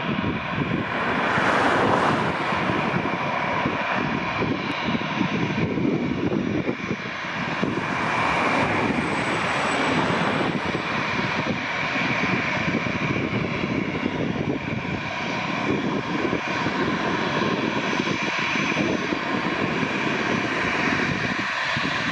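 Airbus A321-211 airliner's twin CFM56 turbofan engines running at taxi power as the jet taxis. A steady rushing sound carries a faint, even whine, and it swells briefly twice.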